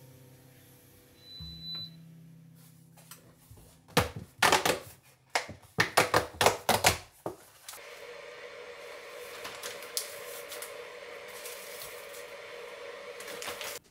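Loud crinkling and crackling of a plastic Ziploc freezer bag being pulled from its box and handled, in quick irregular bursts for about three seconds. Then a steady hum with a faint hiss sets in and runs on while the bag is filled.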